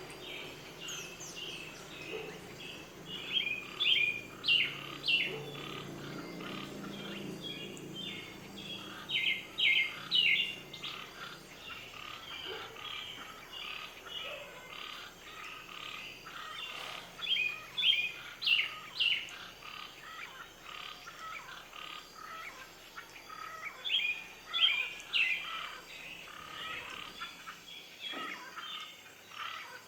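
Many small birds chirping, with louder bursts of quick, high chirps every several seconds.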